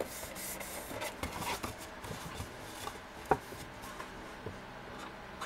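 Red cardstock box being folded and handled, its paper rustling and rubbing softly, with a single sharp tap a little past halfway.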